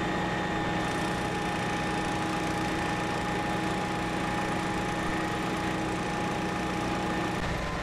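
Diesel engine of heavy construction machinery idling steadily, an even hum with a few held tones on top.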